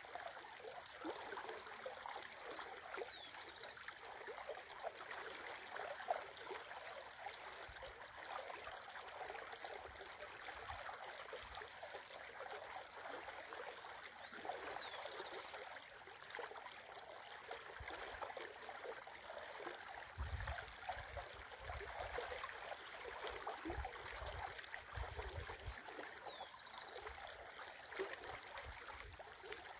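Shallow river running over a riffle, a steady gurgling flow. A bird calls three times, about twelve seconds apart: each time a short sweeping note followed by a brief buzzy one.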